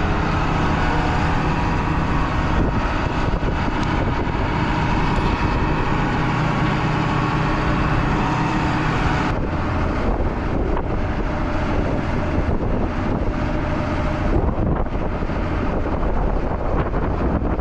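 A heavy engine running steadily, with wind buffeting the microphone; the hiss above it eases about nine seconds in.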